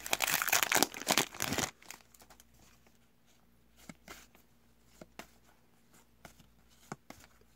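Foil trading-card pack wrapper crinkling as it is torn open, stopping after about a second and a half; then faint short clicks as the cards are flicked through one by one.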